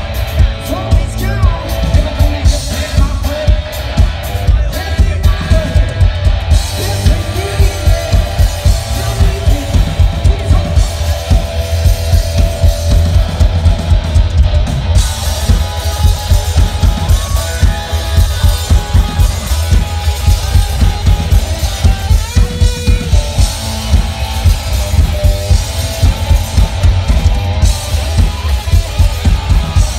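Live rock music from a guitar-and-drums duo: distorted electric guitar over a drum kit, with a heavy kick drum pounding a steady fast beat.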